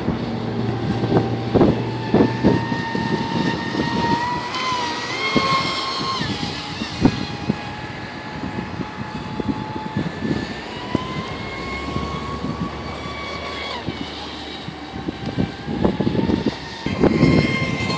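Traxxas Spartan RC speedboat's brushless electric motor whining at speed, the pitch climbing about four seconds in, dropping a couple of seconds later, then climbing again around eleven seconds and falling off near fourteen as the throttle changes. Irregular low thumps run underneath.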